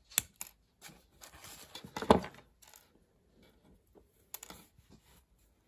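Sprue cutter snipping small plastic coupler parts off the sprue, sharp little clicks, then the rustle and light clicking of tiny plastic parts handled between the fingers, with one louder knock about two seconds in.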